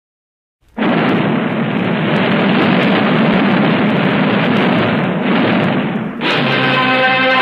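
Silence, then under a second in a loud, steady roar of noise sets in, like a long explosion sound effect. About six seconds in it gives way to dramatic music with held brass-like tones.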